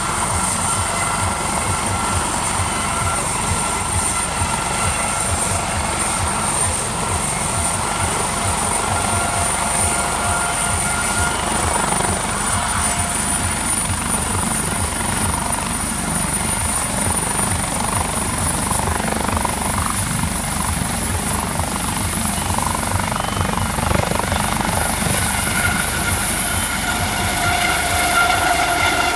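Turbine helicopter running on the ground with its rotor turning, then lifting off: a steady high turbine whine that climbs slowly in pitch over the fast beat of the rotor blades, growing a little louder near the end.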